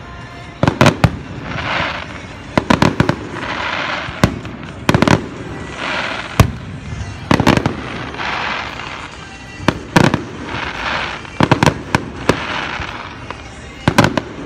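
Aerial fireworks exploding in quick clusters of sharp bangs, a burst every second or two, with a hiss swelling between the bangs.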